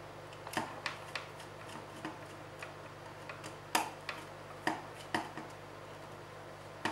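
A small screwdriver clicking and tapping in the screw terminals of an L293D motor shield, in scattered sharp clicks about a second apart, over a steady low hum.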